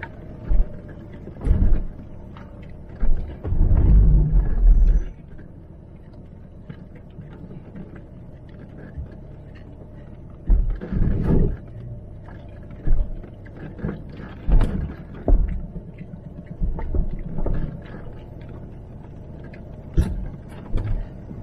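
Range Rover L322 TDV8 driving slowly over a rough dirt track, heard from inside the cabin: a steady low engine and drivetrain hum with irregular heavy thumps and knocks as the wheels and suspension take the bumps, the longest run of them about three to five seconds in.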